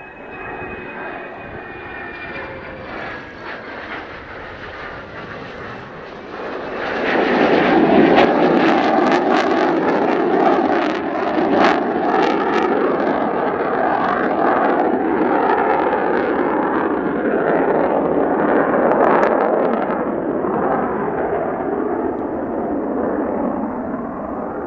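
Mitsubishi F-2 fighter's single F110 turbofan jet engine on a low approach: first a moderate rumble with a falling whine. About seven seconds in, it jumps to a loud, crackling roar as power is applied for the pull-up and climb-out. The roar eases off gradually toward the end.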